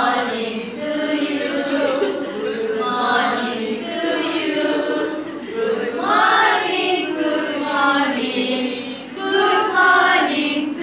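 A group of women singing a children's action song together.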